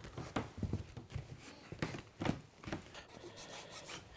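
Foam flooring underlay being rolled out and pressed down by hand: soft scattered rustling and scuffing with a few light knocks.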